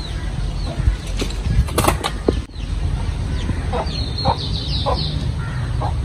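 Chickens: a quick flurry of wing flapping about two seconds in, followed by short clucks and high chirps.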